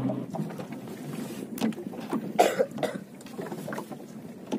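Water slapping and knocking against a small boat's hull while a longline is hauled in by hand, with a short cough about halfway through.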